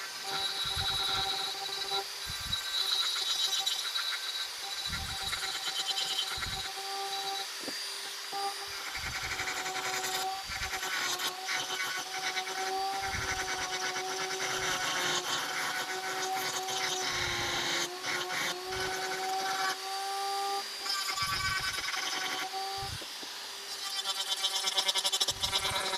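HILDA Dremel-style rotary tool running at a steady high whine while its bit grinds olive wood. A rasping grind swells and fades as the bit bites into the wood, and the whine sags slightly under load, with occasional low bumps.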